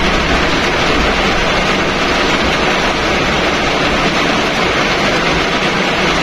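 Heavy rain falling on a car's roof and windscreen, heard from inside the cabin as a steady, dense hiss.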